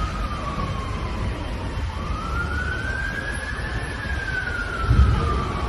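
Emergency vehicle siren on a slow wail, its pitch falling, rising again about two seconds in, then falling once more, over a low rumble. A brief low thump comes near the end.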